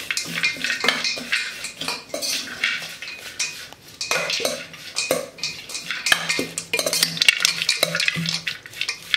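A metal spoon stirring and scraping in a stainless steel bowl, tossing grated vegetables and roasted peanuts, with an irregular run of clinks and scrapes.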